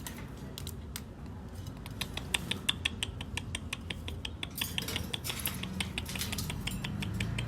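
Parrot making a run of quick, light clicks, about five a second, that crowd closer together just past the middle.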